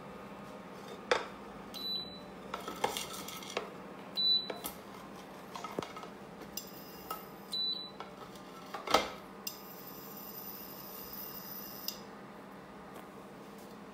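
Metal kitchen utensils clinking and knocking against a frying pan and dishes in separate sharp strikes, the loudest about nine seconds in.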